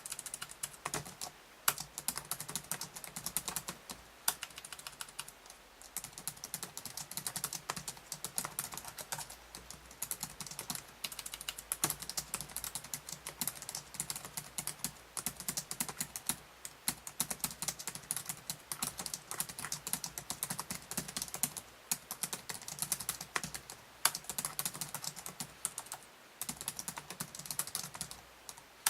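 Fast continuous typing on the keyboard of an LG Z330 laptop: a dense, uneven stream of light key clicks.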